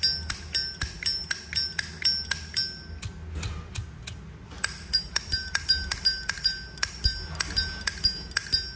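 1994 Zippo lighter's lid flicked open and snapped shut over and over, about three to four clicks a second with a short lull a little past the middle. Each click rings with the clear bell-like chime, the 'âm chuông' that collectors prize in a Zippo.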